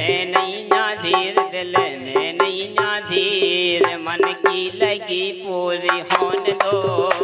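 Bundeli folk music: a harmonium playing under a wavering sung melody line, over a steady beat of percussion strikes that become faster and denser near the end.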